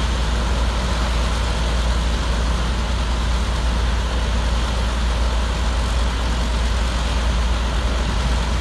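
Griffon 12000TD hovercraft running steadily while it hovers in place on its cushion: an unbroken drone of its engines and fans with a deep low rumble.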